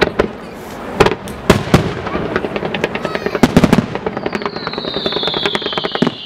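Fireworks display: loud bangs of bursting aerial shells, several in quick succession, with rapid crackling between them. About four seconds in a long high whistle sets in, slowly falling in pitch.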